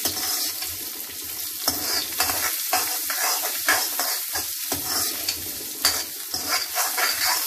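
Raw mango pieces sizzling in hot oil in a black karahi while a metal ladle stirs them, scraping and knocking against the pan again and again.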